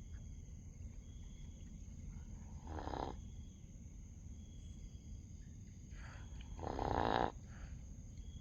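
Sleeping dog snoring: two snoring breaths about four seconds apart, the second longer and louder.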